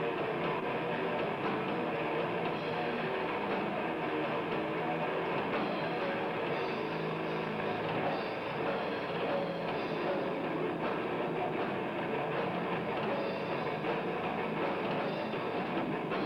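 Death metal band playing live: distorted electric guitar and drums in a dense, unbroken wall of sound, heard through a dull, lo-fi recording.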